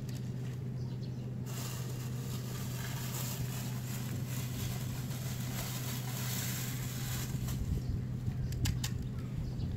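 A steady low hum under a broad outdoor hiss, with a few soft clicks near the end.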